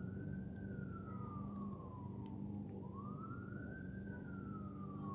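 Siren wailing: one tone rising quickly, then falling slowly, about twice, over a low steady hum.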